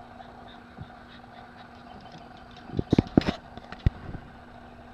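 A quick cluster of sharp taps and knocks about three seconds in, and one more knock just before four seconds, over a faint steady background hum.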